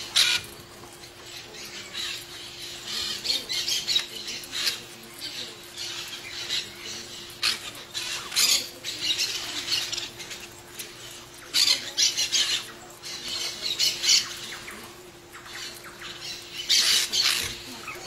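Ringneck parakeets squawking in many short, irregular bursts while an adult feeds its chicks at the nest hole: the chicks' begging and feeding calls. A faint steady hum runs underneath.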